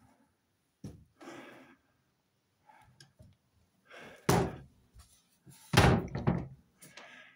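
Wooden wardrobe doors being handled and swung, with a loud knock about four seconds in and a louder cluster of knocks and bumps near six seconds, between quieter noises.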